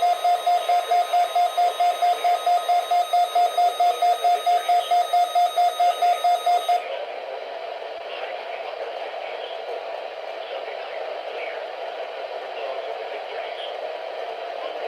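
Weather radio receiver beeping an alert, a pulsed tone several beeps a second. It stops about seven seconds in, leaving radio static with the broadcast faint beneath it.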